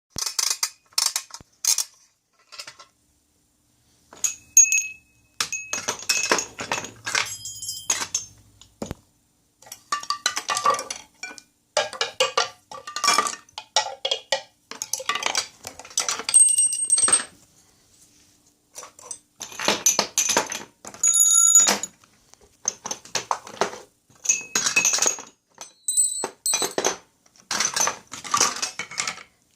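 Irregular bursts of metallic jingling and clinking, with short high ringing tones here and there, broken by brief pauses.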